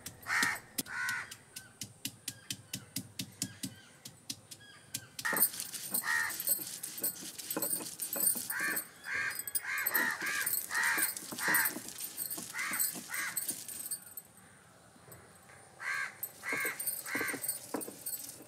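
Crows cawing over and over, in groups of several harsh caws. A run of quick sharp taps sounds through the first few seconds.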